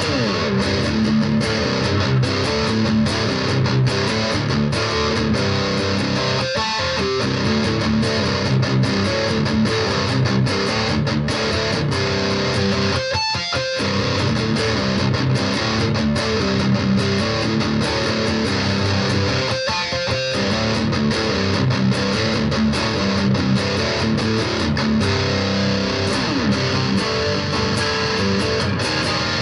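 BC Rich Virgin VG1 electric guitar on its bridge pickup, played through the distortion channel of a Roland Cube Lite practice amp: a continuous distorted rock/metal riff, broken by three brief pauses.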